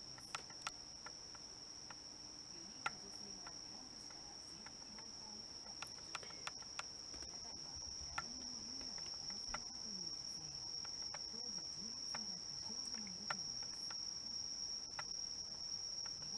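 Crickets chirring in one steady, unbroken high trill that grows slightly louder toward the end, with scattered faint ticks.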